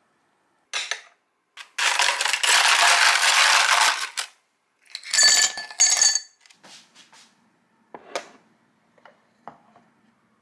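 Tableware being set out: a loud rattling clatter lasting about two seconds, then a clinking burst with a ringing glassy tone, then a few light knocks of small bowls being set down.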